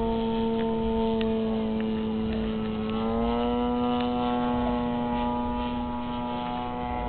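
Radio-controlled model airplane's engine droning steadily in flight, its pitch rising a little about three seconds in.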